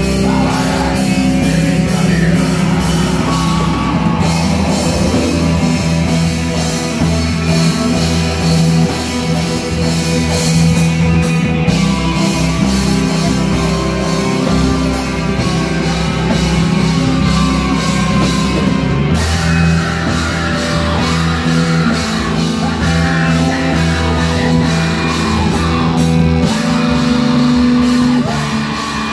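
Live heavy metal band playing loudly: distorted electric guitars, bass, drums and keyboard, with a vocalist singing over them.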